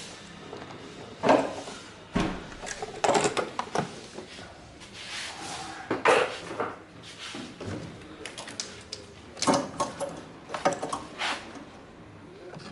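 Irregular knocks and clinks of hard objects being handled, a dozen or so at uneven intervals, with no engine running.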